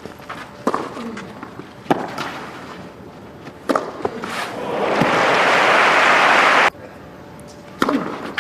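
Tennis ball struck with rackets in a rally, three sharp hits a second or two apart, then crowd applause swelling for about two seconds and cutting off suddenly. Two more racket hits come near the end.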